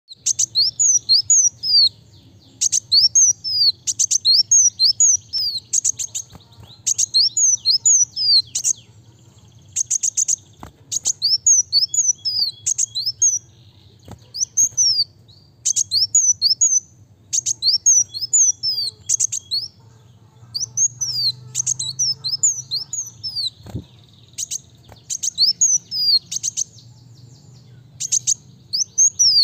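Sunbird (kolibri wulung) singing a fast, high-pitched song: quick runs of thin chirps sweeping up and down, in bursts of a second or two with short pauses between.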